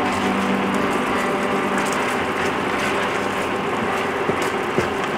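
Sauce of ginger strips and sliced chillies boiling hard in a stainless-steel frying pan, a steady bubbling sizzle, stirred with a wooden spatula. A steady low hum runs underneath, and there are two light knocks near the end.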